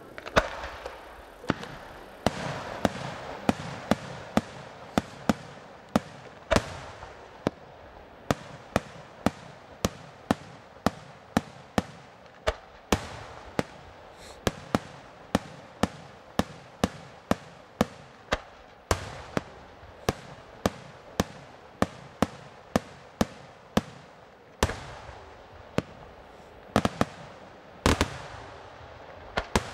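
Aerial fireworks shells bursting in a rapid, steady series of sharp bangs, about two a second, each trailing off in a brief echo, with a few heavier bangs standing out among them.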